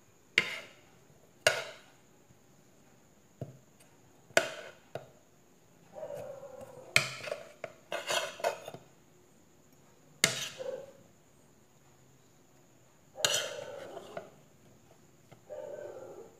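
A metal spoon clinking and scraping against a plate while food is picked up and moved, giving about six sharp separate clinks a second or more apart, with a few short duller sounds in between.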